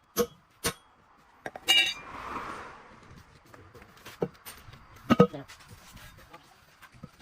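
Irregular metallic clinks and knocks from metal parts and tools being handled, with a ringing clink a little under two seconds in and two sharper knocks around four and five seconds in.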